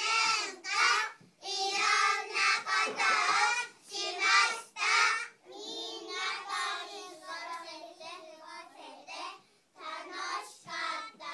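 A group of young children's voices in unison, delivered in short sing-song phrases with brief pauses between them, quieter through the middle stretch.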